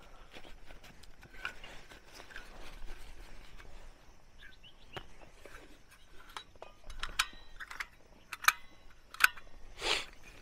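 Handling noise of a compact camping gas stove being taken out of its pouch and its metal pot-support arms folded out: light rustling and small clicks, then three sharp metal clicks with a brief ring in the second half, and a short rustle near the end.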